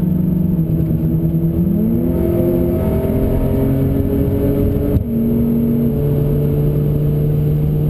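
Audi B8 S4's supercharged 3.0-litre V6 through an APR exhaust, heard from inside the cabin under hard acceleration on track: the engine note climbs, breaks off briefly about five seconds in as on an upshift, and then runs on at a lower, steady pitch.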